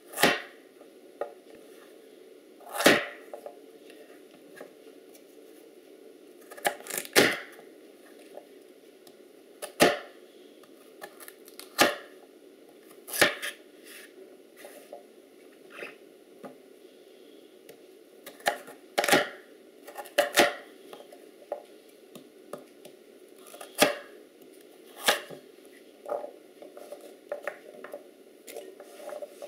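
Chef's knife chopping peeled sweet potato into cubes on a bamboo cutting board: single sharp knocks of the blade on the wood, irregularly spaced every second or two, over a faint steady hum.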